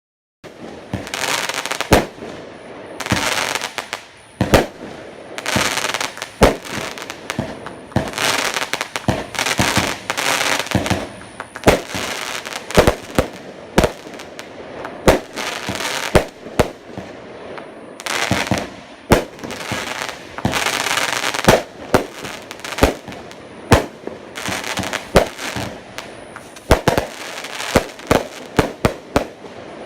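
Boomwow BW1119 "Color Crackles" consumer fireworks cake firing shot after shot, starting about half a second in. Each sharp launch report, coming every second or so, is followed by a spray of crackling from the bursting crackle effect.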